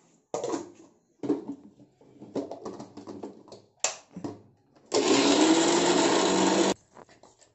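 Knocks and clicks of a steel mixer-grinder jar and its plastic lid being set on the base, then the mixer-grinder motor running in one short burst of under two seconds, grinding coconut, jaggery and cardamom, its pitch rising as it spins up before it cuts off suddenly.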